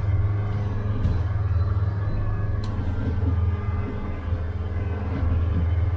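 Steady low drone of the boat's engine under way in rough seas, heard from inside the enclosed pilothouse cabin. A couple of short sharp knocks come about one and two and a half seconds in.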